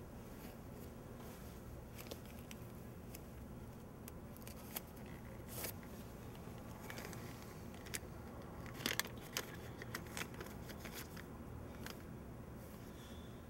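Faint rustling of a suit jacket and paper being handled as a body's pockets are searched, with a few sharp crinkles and clicks, most of them around six and nine seconds in, over a low steady hum.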